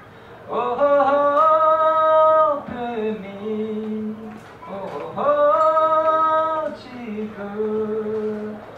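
A man sings a Tibetan song into a handheld microphone. He sings two long phrases, each sliding up to a held high note and then settling onto a lower held note.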